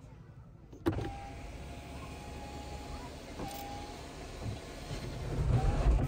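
Hyundai Kona's power sunroof: a click, then its electric motor running steadily, growing louder near the end.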